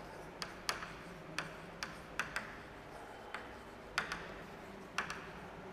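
Chalk writing on a chalkboard: about a dozen faint, short, sharp taps and scrapes at irregular intervals as the letters are formed.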